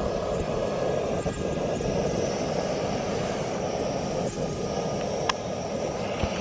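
Gas-canister camping stove burner running steadily under a pot of water being heated, with a single sharp click about five seconds in.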